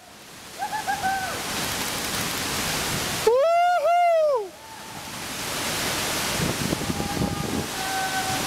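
Steady rushing roar of a waterfall pouring into whitewater. About three seconds in comes a loud, high-pitched two-part whoop from a person lasting about a second, with a shorter, fainter call near the start and another near the end.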